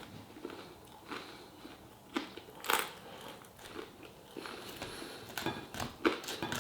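A person chewing and eating a mouthful of food close to the microphone, with a few brief sharp clicks along the way.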